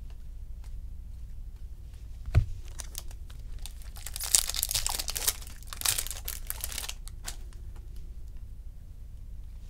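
A single thump a little over two seconds in, then a sealed trading-card pack wrapper crinkling and tearing open for about three seconds, with a few sharp rips.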